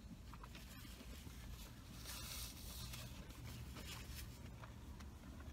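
Faint chewing of a crispy fried chicken sandwich and rustling of its paper wrapper, the loudest rustle about two seconds in, over a low steady hum.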